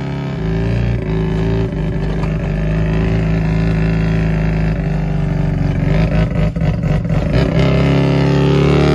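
Engine of an old vehicle running steadily as it drives slowly, heard from inside the cab; the note turns uneven for a moment in the later part.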